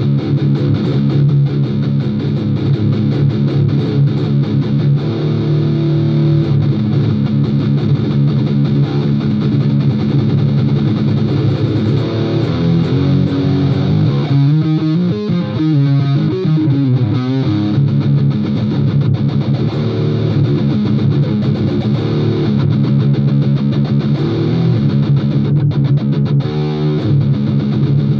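Distorted electric guitar playing, mostly long held notes, with a stretch of wavering, bent notes about halfway through.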